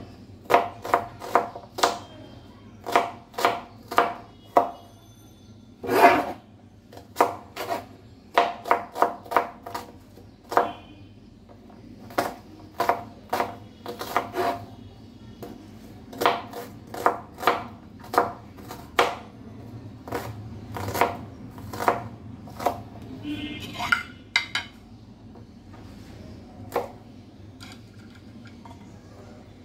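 Kitchen knife chopping small red onions on a plastic cutting board: sharp knocks in quick runs of several strokes, with short pauses between runs, thinning to a single knock near the end.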